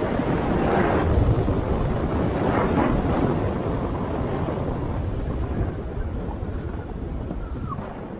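Wind buffeting the action camera's microphone on a moving scooter, mixed with road and tyre rumble. It grows gradually quieter toward the end as the scooter slows.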